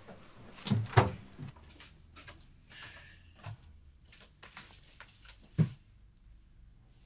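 Footsteps thumping up wooden stairs, followed by scattered knocks and clicks of something being handled, with one heavy thump a little over five seconds in.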